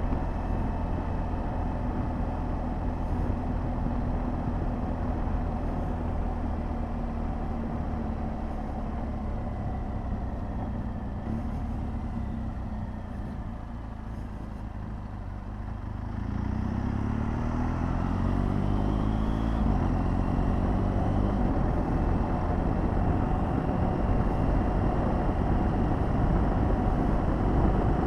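BMW R 1200 GS Adventure's boxer-twin engine and wind noise on the move. Halfway through, the bike slows and the sound drops for a few seconds, then it accelerates with a rising engine note and the wind noise builds again.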